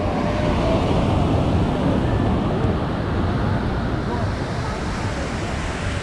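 Ocean surf washing steadily onto the beach, with wind blowing across the microphone.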